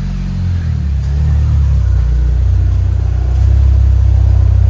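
Saab 9-3 engine just started, its speed wavering briefly before it settles into a steady idle. It runs smoothly with no rattle, now that the loose, corroded exhaust heat shields have been removed.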